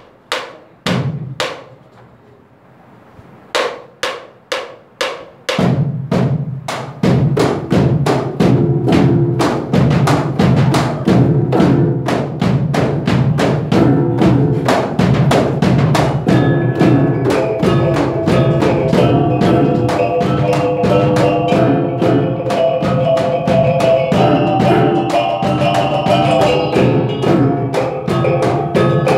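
Caklempong ensemble of small bronze kettle gongs and drums. After four sharp clicks about four seconds in, it starts a piece with a steady, fast drum rhythm. The ringing gong-chime melody grows stronger from about halfway.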